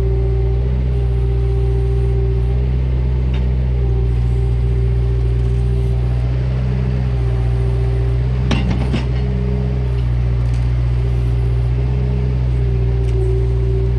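Bobcat 331E mini excavator's diesel engine running steadily under load, with a whine that swells and fades as the arm works. A clank sounds about eight and a half seconds in.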